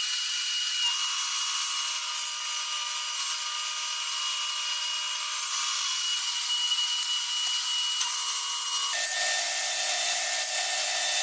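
Power saw running and cutting hard maple, a steady high-pitched whine whose tones shift about a second in and again near nine seconds in.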